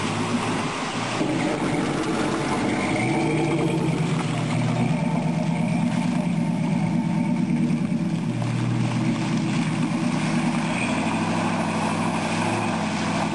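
Lifted Toyota pickup truck's engine revving as it drives through deep mud, its pitch stepping up and down with the throttle, over the sloshing and spraying of mud and water from the tyres.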